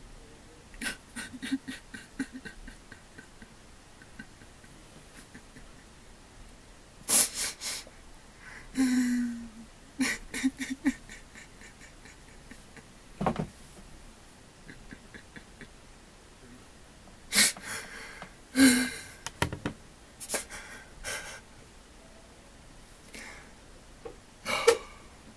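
A man sobbing: shaky gasping breaths and short broken cries come in several bouts, with quiet pauses of a few seconds between them.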